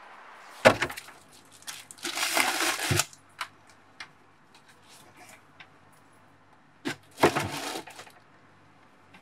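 Refrigerator being opened and searched: a sharp knock about half a second in, then crinkly rustling and a knock as things inside are handled, and another knock and rustle near the end.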